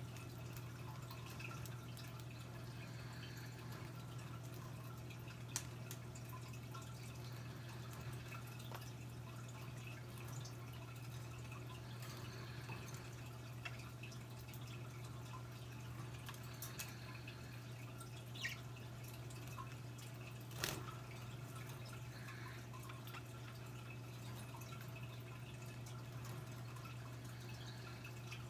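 Quiet room tone: a steady low hum with scattered faint clicks and a few sharper ticks.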